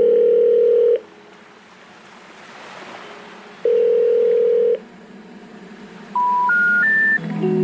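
Telephone call tones: a steady ringing tone sounds twice, about a second each with a pause between, then three short tones step upward in pitch. The three rising tones are the special information tones that signal a call that cannot be completed.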